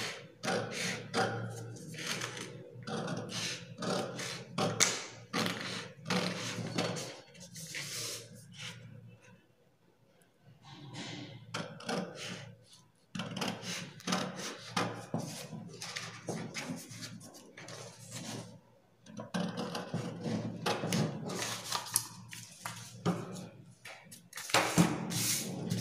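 Scissors snipping through stiff paper pattern sheet, cutting along a curved neckline in a run of short, quick snips, with a brief pause about ten seconds in before the snipping resumes.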